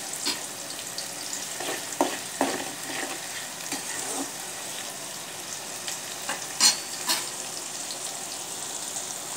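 Garlic cloves, shallots and fresh curry leaves sizzling in hot oil in a metal kadai, with a steady hiss. A spoon stirs them and knocks or scrapes against the pan several times; the loudest knocks come about two-thirds of the way in.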